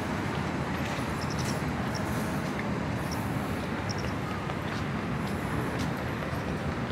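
Busy railway station ambience: a steady low rumble with a background murmur and a few faint short high beeps.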